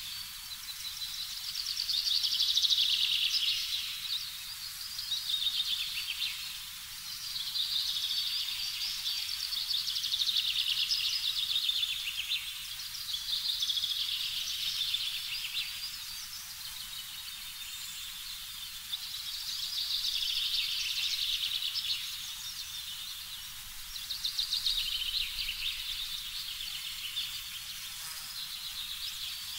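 A high chirping chorus, made of rapid fine pulses, that swells and fades in waves every five or six seconds.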